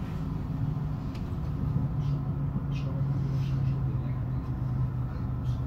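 Inside the passenger cabin of a regional train running along the line: a steady low drive hum over rumbling wheel and rail noise, the hum dropping slightly in pitch about halfway through.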